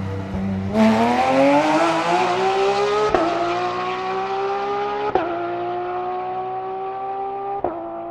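Porsche 992 GT3 R race car's flat-six going to full throttle about a second in and accelerating hard. The pitch rises through three quick upshifts, and the sound gradually fades as the car pulls away.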